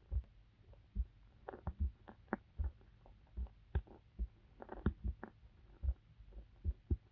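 A young woman's heartbeat picked up by a microphone held against her body: deep, steady low thumps a little more than once a second. Irregular soft gurgles and crackles from inside the body come in between the beats.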